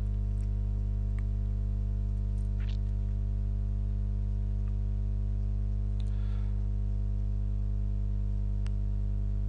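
Steady low electrical mains hum with its overtones, unchanging throughout, with a few faint clicks.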